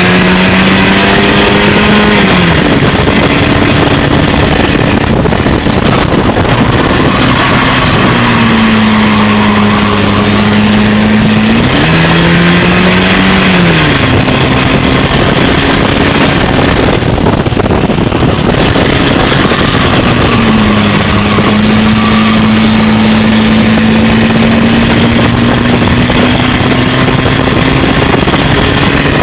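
Stinger dirt-track race car's engine, heard from inside the cockpit at racing speed over a heavy haze of engine and track noise. The engine note jumps up in pitch at the start and again about twelve seconds in, dropping back a couple of seconds after each, then holds a steady, slowly climbing note through the last third.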